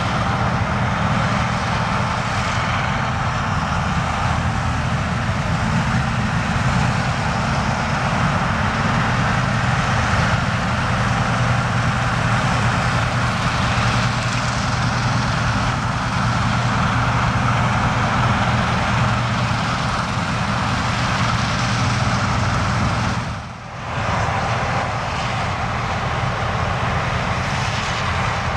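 John Deere combine harvester running steadily in the wheat field: a steady diesel hum under the whir of the machine, briefly dipping once near the end.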